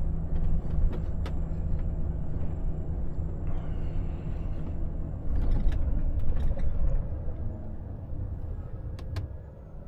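Inside a Volvo FH truck cab on the move: steady low rumble of the diesel engine and road noise, with a few sharp clicks from the cab. The rumble grows quieter near the end.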